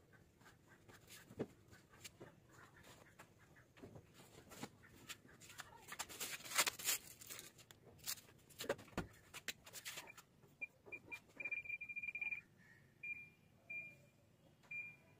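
Scattered knocks and rustles of clothes and lid being handled at a top-loading washing machine, then, from about ten seconds in, a string of short high electronic beeps from its control panel as its buttons are pressed, one beep held longer than the rest.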